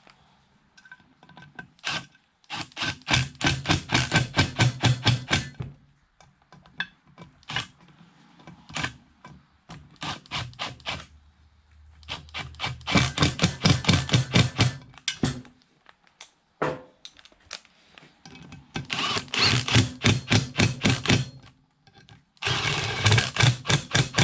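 Cordless impact driver hammering bolts into a Yamaha YFZ450R aluminium crankcase half, in five bursts of a few seconds each, each a rapid rattle of impacts over the motor's hum.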